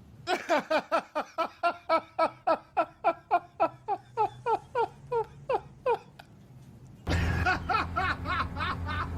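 A person laughing in a fast, even run of "ha" pulses, about four a second, for nearly six seconds. After a short pause it cuts abruptly to louder laughing or voices over a steady low hum.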